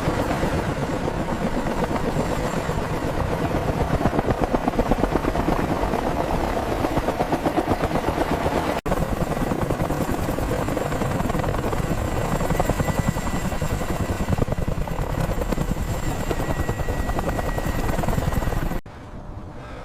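Helicopter in flight, a steady fast rotor chop that cuts off abruptly about a second before the end.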